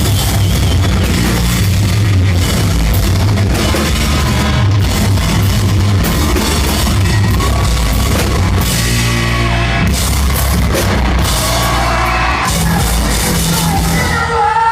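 Live rock band playing loudly, with drums and distorted guitars. The song stops near the end.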